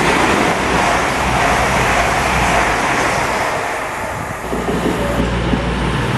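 East Midlands Railway Class 222 Meridian diesel train running through the station at speed, a loud rush of wheels on rail and air that eases off after about four seconds. About four and a half seconds in, another Meridian drawing into the platform takes over with a steady low diesel engine hum.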